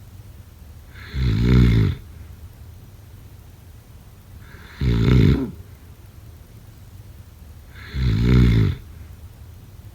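A person snoring: three snores, each under a second long, about three seconds apart, with quiet breathing between them.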